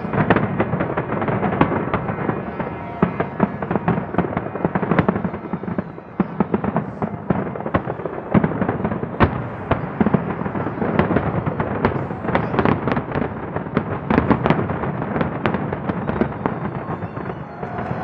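Large fireworks display in its finale: a dense, rapid barrage of firework bangs and crackles that thins out near the end.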